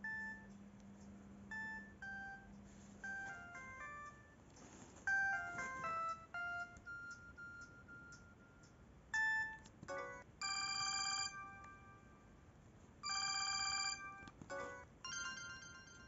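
A Samsung SGH-E250 mobile phone plays short previews of its built-in ringtones through its small speaker, one after another. First comes a run of simple electronic melody notes, then a held chord that sounds twice, then quick repeated notes near the end.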